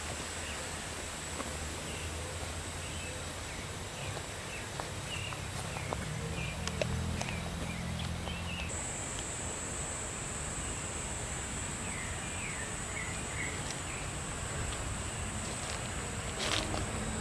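Outdoor ambience of birds chirping in short calls over a steady high insect buzz, which gets louder about halfway through.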